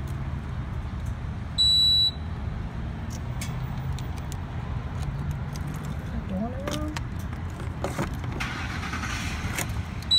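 Gas pump card reader giving a high, steady beep of about half a second about two seconds in, and a short beep again near the end: the reader's prompt to pull the card out quickly and insert it again after a failed read. Light clicks of the card in the slot over a steady low hum of vehicles.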